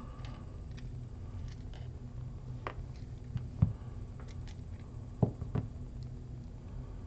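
A few light clicks and knocks as small metal padlock cylinders are handled and set down, the loudest about three and a half seconds in and two more close together near five seconds, over a steady low hum.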